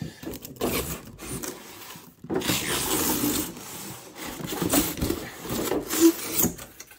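Cardboard scraping and rubbing as a packaging box is pulled open and its inner tray dragged out: a few short scrapes, then a longer, louder stretch of scraping from about two seconds in.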